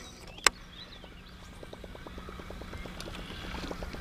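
A single sharp click about half a second in, then fast, even ticking at about six a second that grows louder, from a baitcasting reel being cranked to retrieve a glide bait. A steady low hum runs underneath.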